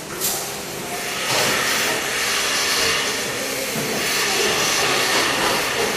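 Milking parlour equipment hissing steadily, after a short click near the start; the hiss swells about a second in and then holds.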